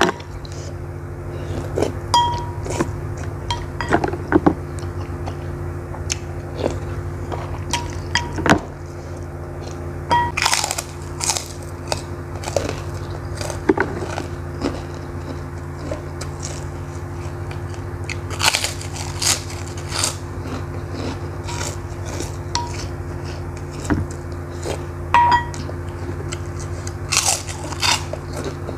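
Close-miked eating: chewing a beef meatball (bakso) and biting into crisp prawn crackers, with many short crunches and wet mouth sounds. A steady low hum lies under it.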